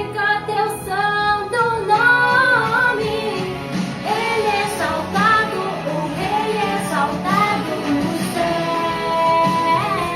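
Portuguese-language Christian worship song playing: high voices singing a melody over guitar and bass accompaniment.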